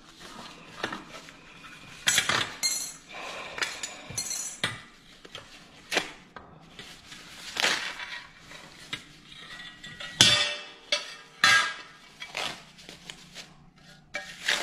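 Paper wrapping rustling and crinkling as a metal stove leg is unwrapped, with sharp clinks of the leg knocking against a granite countertop several times.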